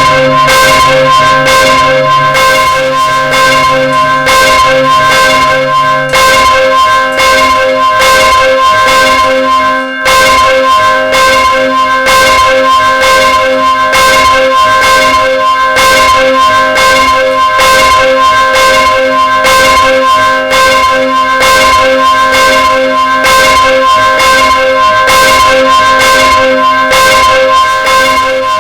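Church bell swinging and ringing, its clapper striking again and again in an even rhythm, each stroke blending into the long ring of the last. A deeper hum underneath dies away about six seconds in.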